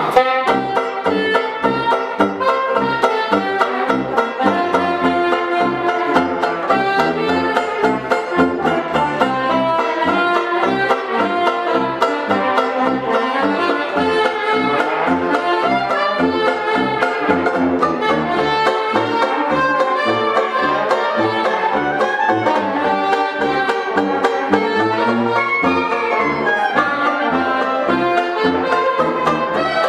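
Upbeat 1920s-style hot jazz band music with a steady rhythmic beat and a walking bass line.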